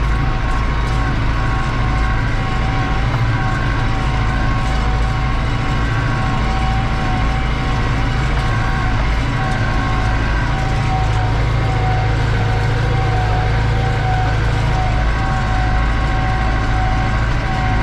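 New Holland TD85 tractor's turbocharged diesel engine running steadily under load while pulling a disc harrow, heard from inside the cab. A steady high turbo whine sits over the low engine hum.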